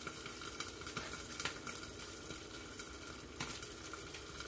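Eggs frying in a covered pan, a steady soft sizzle, with a few light scrapes of a table knife spreading avocado on crisp toast.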